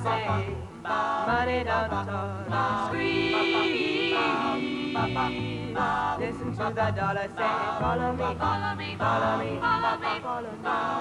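A group of women singing a pop song together over backing music with a steady bass line, with a long held note about a third of the way in.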